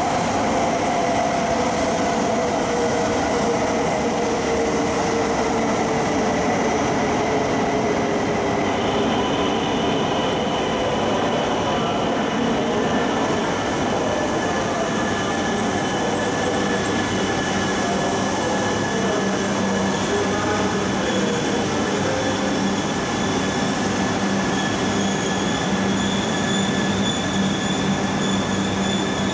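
Coupled E2- and E3-series Shinkansen train slowing as it passes along the platform. Its motor whine falls slowly in pitch over the first several seconds, then steady high squealing tones ring out as it rolls on at low speed.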